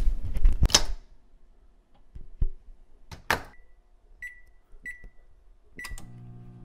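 A burst of noise cuts off about a second in. Then come four button presses, each a sharp click followed by a short electronic beep, and near the end an appliance starts up with a steady low hum.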